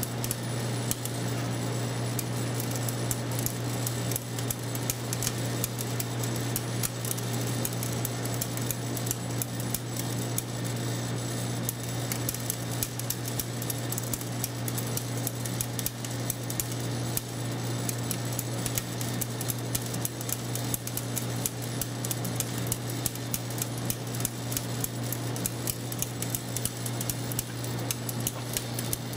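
Vibratory feeder humming steadily while white wheat kernels rattle along its tray and drop down the chute, a continuous patter of small clicks.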